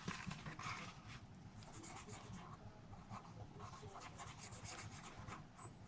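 Faint, irregular scratchy strokes of a Wink of Stella glitter brush pen being worked over stamped cardstock.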